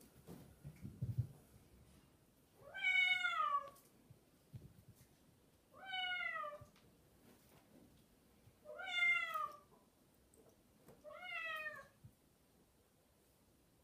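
A cat meowing four times, each meow drawn out for about a second and a few seconds apart. There is soft rustling in the first second or so.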